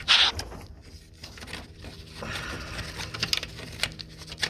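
Small metal clicks and scraping as a wrench is worked onto the 13 mm nut of the alternator's B+ terminal in a cramped engine bay, with a brief loud rustle at the very start.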